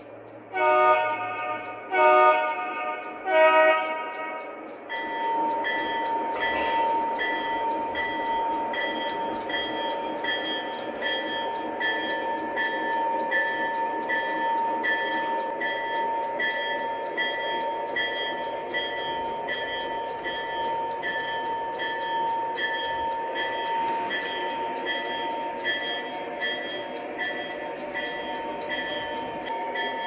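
Lionel O-scale Union Pacific ES44AC model locomotive's onboard sound system sounding three short horn blasts. The train then pulls away with a steady running sound that carries a high steady tone and a regular beat about twice a second.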